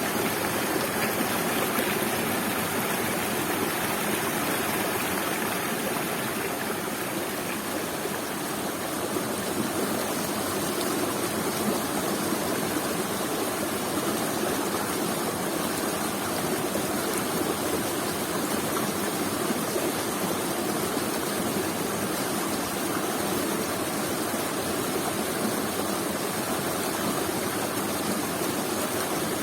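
Waterfall and fast-flowing river water, a steady full rush of falling and splashing water.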